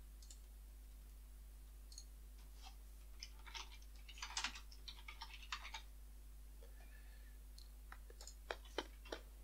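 Faint, irregular clicks and taps of fingers typing on a smartphone's touchscreen keyboard, in a flurry a few seconds in and a few sharper taps near the end, over a steady low electrical hum.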